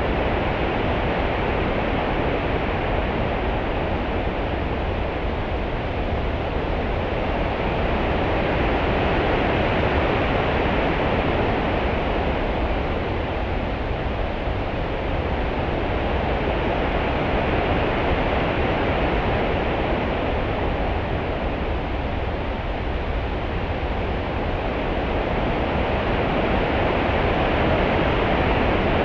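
Open-sea ambience: a steady rushing wash of swell and small ripples with a deep low rumble underneath, swelling gently and easing back every eight to ten seconds, with no waves breaking.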